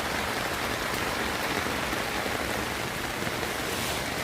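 Steady rain falling, an even hiss with no change.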